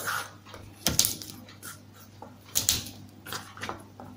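Garlic cloves crushed under a kitchen knife on a plastic cutting board: several sharp knocks and crunches at irregular intervals.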